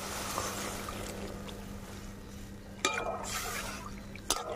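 Water being added to hot fried spice paste in a metal kadai, with a steady hiss that fades slowly as the masala loosens into gravy. A metal spatula knocks against the pan about three seconds in and again near the end.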